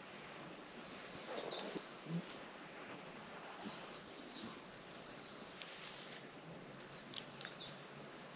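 Outdoor ambience: a steady high drone of insects, with a few short high bird chirps scattered through it.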